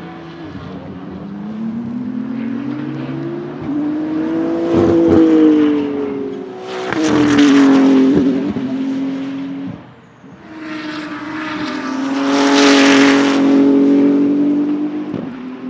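BMW M4 GT3's twin-turbo 3.0-litre inline-six (P58) race engine running hard as the car drives past twice. On the first pass the engine note climbs in pitch and dips, and it is loudest about halfway through. After a break of about a second, the second pass holds a steadier note and is loudest near the end.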